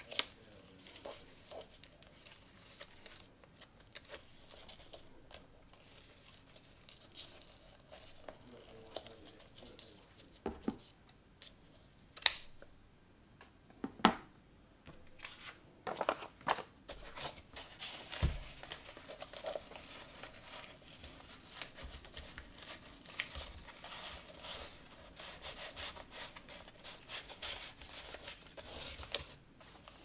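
Hands working with a paper-wrapped parcel, jute twine and a paper shipping label: scattered light taps and clicks, two sharp clicks about 12 and 14 seconds in, then steady paper rustling and crinkling through the second half.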